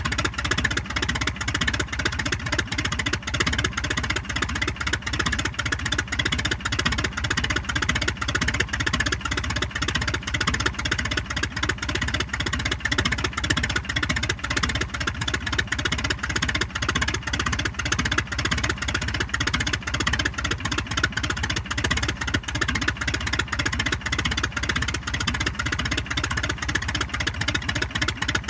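A de Havilland Tiger Moth's single four-cylinder inverted inline piston engine, heard from outside the aircraft, ticking over steadily with a fast, even beat of firing strokes and no revving.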